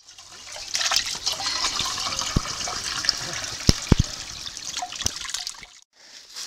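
Spring water pouring from a stone spout into a metal mug and splashing into a stone basin, a steady rushing splash that breaks off about a second before the end. A few sharp knocks cut through it.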